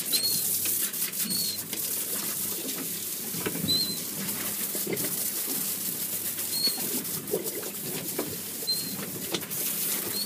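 Seabirds calling over open water: short, high chirps every one to three seconds, over steady wind and sea noise on a small boat.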